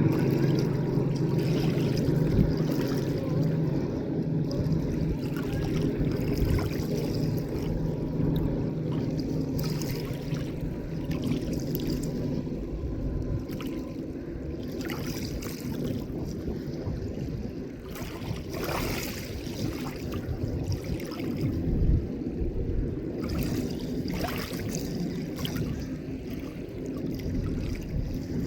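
A motorboat's engine running as a steady low hum that gradually fades over the first half, over the noise of lake water.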